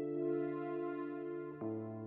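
Background music: soft electric piano and synthesizer chords held steady, moving to a new chord about one and a half seconds in.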